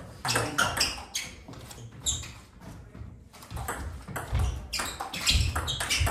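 Table tennis rally: the ball clicking off the bats and bouncing on the table in quick succession, with a short lull about halfway through. Shoes squeak on the floor in between.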